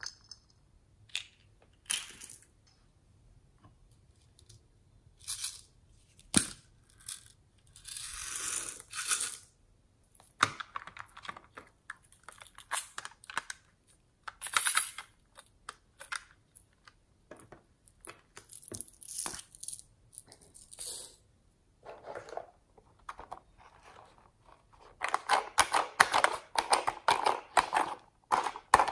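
Hands handling hard plastic toys and a small plastic cup: scattered clicks, knocks and rustles. Near the end comes a dense run of rapid plastic clicking and clatter as the buttons of a toy whack-a-mole game are pressed.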